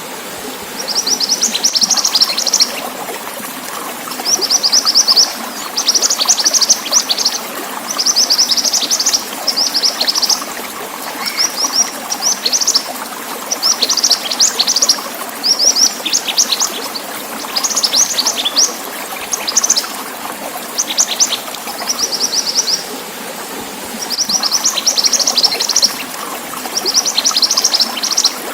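Mantenan bird singing: short bursts of rapid, high chirps repeated every second or two, over a steady trickle of running water.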